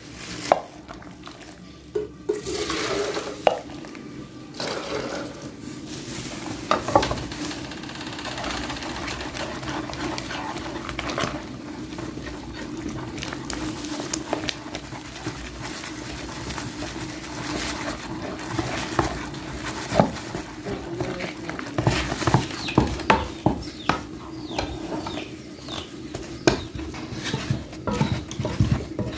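Posho (maize-flour porridge) being stirred and mingled in a cooking pot, the utensil scraping round the pot and knocking against its sides. The knocks come thicker and faster in the second half.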